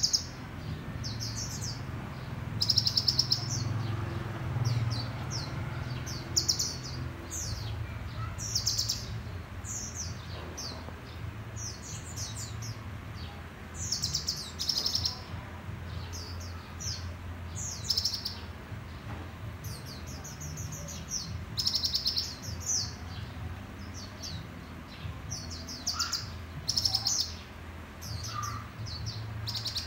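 Caged red sunbirds singing: short bursts of rapid, high trilling chirps, one every second or two, over a steady low hum.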